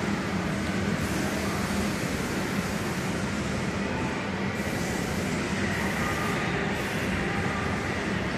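Kiddie airplane ride turning: a steady mechanical hum and rumble with no let-up, over the even noisy din of an indoor amusement centre.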